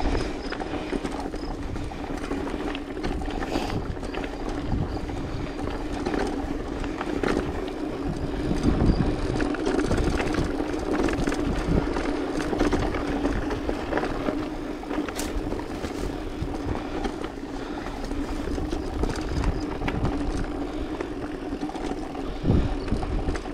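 Mountain bike riding down a dirt singletrack: tyres rolling over the dirt and the bike rattling over bumps, under a steady hum, with heavier knocks about nine seconds in and near the end.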